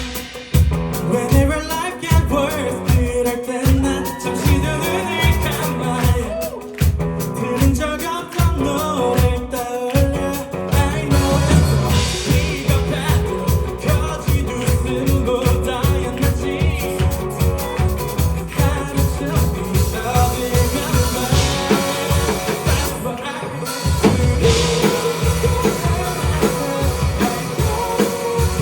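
A live band playing an upbeat pop-rock song with a steady beat and singing.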